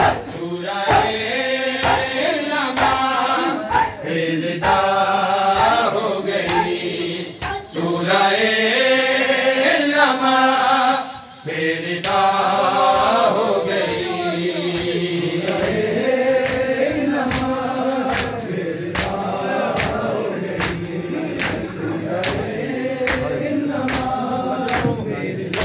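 Men's voices chanting a noha, a Shia mourning lament, in unison, kept in time by a steady beat of sharp chest-beating slaps (matam). The sound breaks off briefly near the middle, then the chant and slaps carry on.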